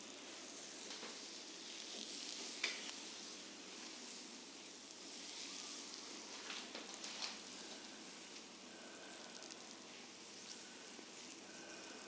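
Hands kneading and rubbing a person's oiled skin during a deep tissue massage: soft, steady skin-on-skin friction with a few small slick clicks, the sharpest about two and a half seconds in.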